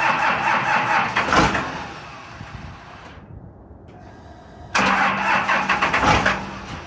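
12-valve Cummins inline-six diesel being cranked on the starter in two spells of about two seconds each, the second starting about five seconds in, with a fast even pulsing of compression strokes; each time it falls back without running on. This is a cold start at 19 degrees with no intake grid heater and no block heater plugged in.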